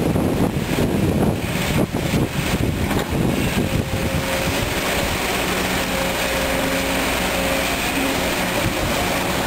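Kobelco SK200 hydraulic excavator's diesel engine working under load, with a steady hydraulic whine setting in about four seconds in as the loaded boom lifts and swings toward the dump truck.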